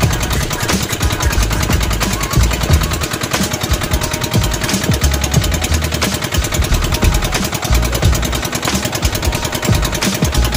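Boat engine running at a steady speed, a loud, fast, even chugging.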